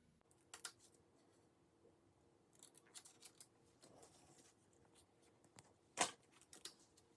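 Scissors cutting paper: a scattering of short crisp snips, the loudest about six seconds in.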